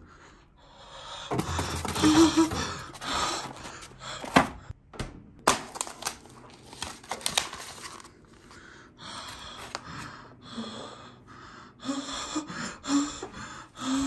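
A person panting and gasping in repeated breathy bursts, with a few short grunts and a couple of sharp knocks from handling about four to five seconds in.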